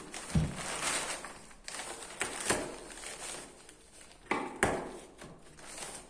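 Flat screwdriver scraping and prying at cut wood in a tight corner, with several sharp knocks and cracks of wood.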